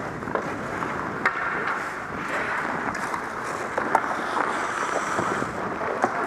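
Ice hockey skate blades scraping and carving on the ice as the player skates, a steady scraping hiss broken by a few sharp clicks from sticks or puck.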